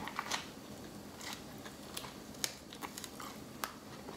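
Close-miked chewing of a mouthful of burrito: scattered short wet clicks and smacks from the mouth.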